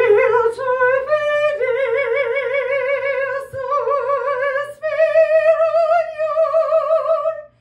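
A woman singing a vocal exercise on held vowels with a wide, regular vibrato, moving through a few sustained notes with the last one the highest, and taking a quick breath about three and a half seconds in. It is a breath-support exercise, sung after being told to breathe into the back.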